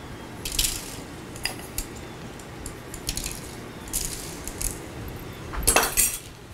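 Scattered light clinks and taps of a spoon against a bowl of cookie icing, with a louder burst of clatter about five and a half seconds in.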